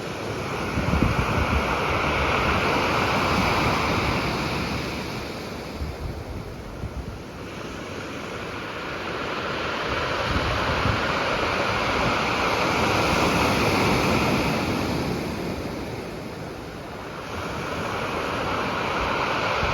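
Sea waves surging and breaking against rocks, the wash swelling and easing three times, with wind buffeting the microphone.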